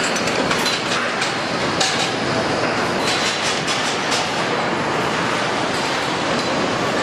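Steady clattering machinery noise of a car assembly line's body shop, with a cluster of sharp clicks and clanks about three to four seconds in.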